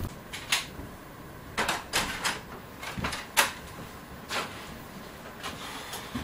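Boots walking on bare wooden floorboards, with knocks from the wooden hut door being handled: a string of irregular sharp knocks and clicks.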